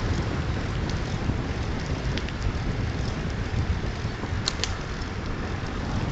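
Wind buffeting a phone's microphone while cycling, a steady low rumble, with a few faint ticks and two sharp clicks close together about four and a half seconds in.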